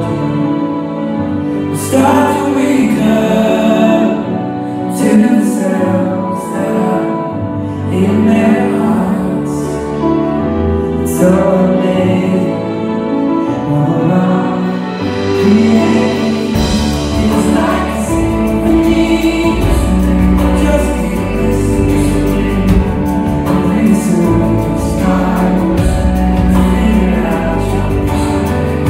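Male singer performing live into a microphone over instrumental accompaniment, a slow gospel-tinged pop song. About halfway through, the accompaniment fills out with a deeper bass.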